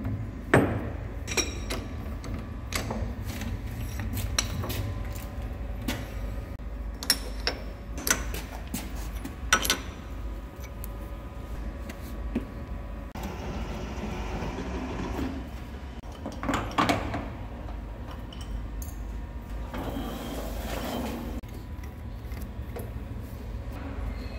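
Lathe setup work: repeated sharp metal clanks, knocks and clicks as a steel slug is clamped in the lathe chuck and tooling is fitted, over a steady low hum. Two noisy stretches of a second or two each, one near the middle and one toward the end.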